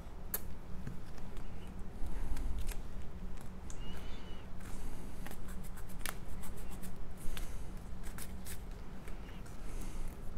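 Stiff cardstock being handled, folded and pressed down by hand on a tabletop: scattered light crackles and taps with a few short rustles.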